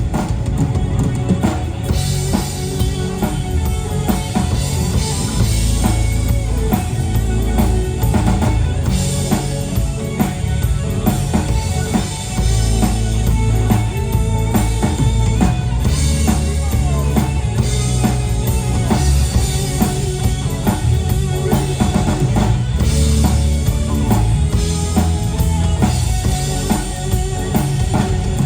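Rock band playing an instrumental passage, driven by drum kit with bass drum and snare, without vocals.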